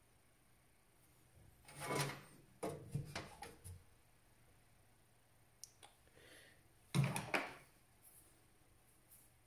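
Hands handling computer parts and tools: a rustle and knock about two seconds in, a quick run of clicks and knocks just after, and a louder knock with rustling about seven seconds in.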